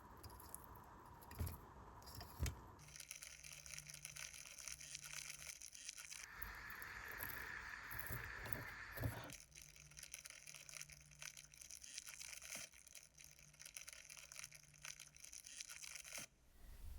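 Faint handling and scraping of small parts of a rusty die-cast scale model car, with a few sharp clicks, in several short edited takes.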